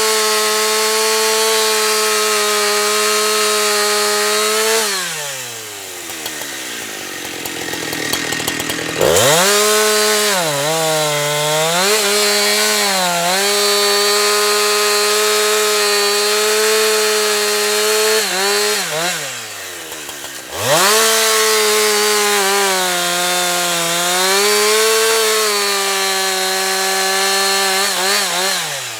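Husqvarna 365 two-stroke chainsaw cutting logs at full throttle. The pitch sags as the chain bites into the wood, and the throttle is let off between cuts about five seconds in, again near twenty seconds, and near the end, the engine falling toward idle before revving back up.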